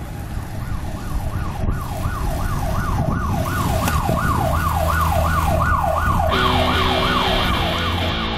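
Siren yelping, its pitch sweeping rapidly up and down about three times a second. Music with guitar comes in about six seconds in.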